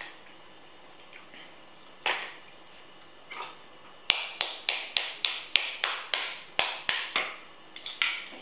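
A knife striking a cooked crab claw to crack the shell: a quick run of about a dozen sharp taps, three or four a second, starting about four seconds in, after a single softer knock.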